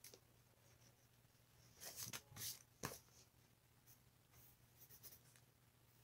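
Faint pencil strokes scratching on sketchbook paper: a short run of quick scribbling about two seconds in, then a single sharp tap, with only light ticks of the pencil after that.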